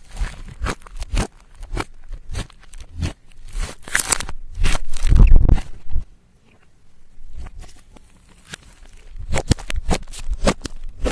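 Slime being squeezed, stretched and folded by hand, giving a run of sticky crackles and popping clicks as air pockets burst. The densest, loudest stretch comes about halfway through.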